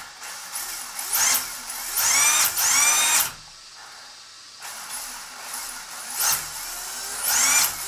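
HobbyWing XD10 ESC and 13.5-turn brushless motor in an RC drift car, blipped on the throttle: an electric whine that sweeps up and back down in pitch with each blip, about six times, with a quieter stretch near the middle.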